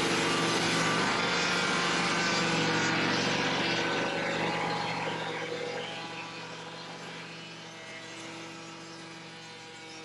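Swing blade sawmill's engine and saw running loud under load, then dropping about halfway through to quieter steady running.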